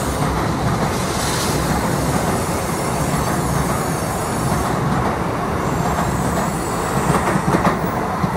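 N700A Shinkansen train pulling out of the station past the platform: a steady rumble of wheels and running gear, with a few sharp rail clacks near the end as the last cars go by.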